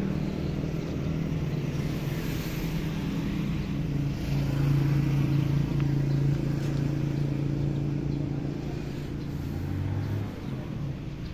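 Yamaha Alfa's two-stroke single-cylinder engine idling steadily through an aftermarket F1ZR exhaust.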